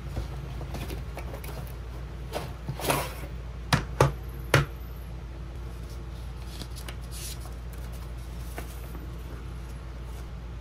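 Unboxing handling: cardboard rustling as a tripod is slid out of its box, then three sharp knocks in quick succession, over a steady low hum.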